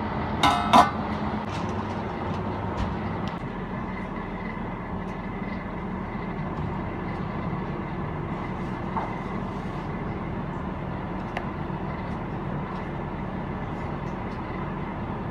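An aluminium pot lid is set onto a stockpot with two ringing metallic clanks about half a second in. A steady machine hum runs underneath throughout, the drone of a commercial kitchen's ventilation or oven fan.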